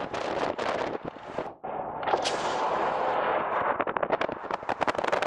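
Wind buffeting the camera microphone at the window of a moving car, a loud rush full of crackling pops over the car's road noise; it drops away for a moment about one and a half seconds in, then comes back.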